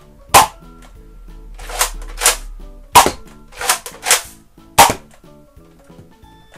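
Nerf Rival Artemis pump-action foam-ball blaster fired three times, each shot a sharp crack. Between the shots the pump grip is racked back and forward, two softer clacks each time; the cocking stroke is light.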